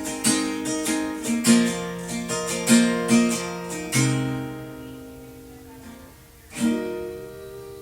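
Acoustic guitar strummed in a steady rhythm, recorded through a phone's microphone. About four seconds in the strumming stops and a chord is left to ring, then a single last chord is struck about six and a half seconds in and rings out.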